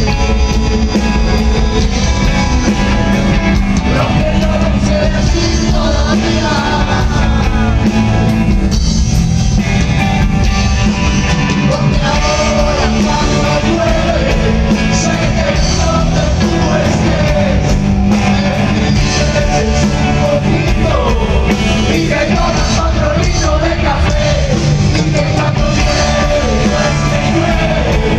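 Live rock band playing a song with sung vocals, the drums keeping a steady beat under loud guitars. Recorded on a phone, so the sound is loud and crowded.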